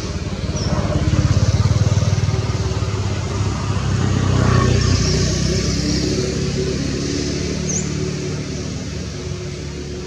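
A motor vehicle engine running as it passes, growing louder over the first two seconds, swelling again around the middle, then slowly fading.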